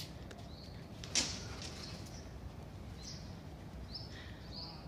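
Small birds chirping in short, high calls repeated every second or so over low background noise, with one sharp click about a second in.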